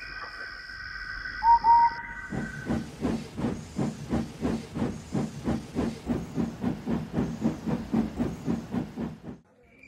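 Steam locomotive sound effect: two short whistle toots about a second and a half in, then steady exhaust chuffs, about three a second, as the engine pulls away, stopping abruptly near the end.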